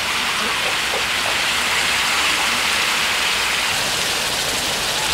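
Chopped duck meat sizzling and frying in a hot metal wok: a steady hiss.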